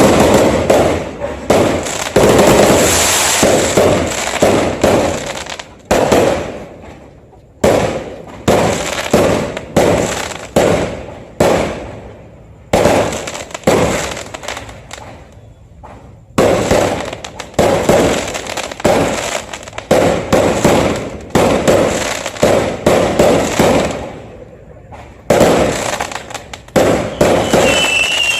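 Fireworks going off in a rapid barrage of bangs, each with a decaying echo, broken by a few abrupt cuts. A high whistle starts near the end.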